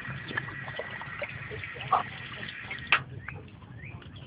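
Dogs moving about close by: scattered light clicks and scuffs, with one sharper knock about three seconds in.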